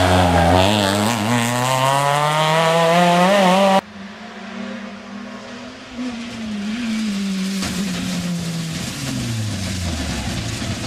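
Rally car engine accelerating hard, its pitch climbing steadily. About four seconds in the sound cuts abruptly to another rally car, quieter and further off, its engine pitch rising and falling as it runs through the gears.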